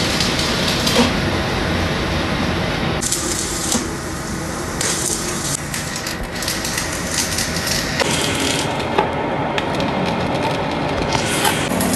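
Stick (arc) welding crackling and hissing, dense with fine pops, the sound changing abruptly a few times as it cuts between separate welds.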